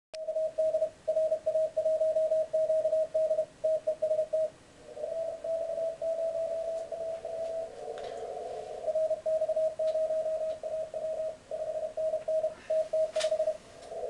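Morse code (CW) received on an Elecraft K3 shortwave transceiver: a mid-pitched beep keyed on and off in dots and dashes over faint band hiss. Between about five and nine seconds in, a second station at a slightly lower pitch overlaps it.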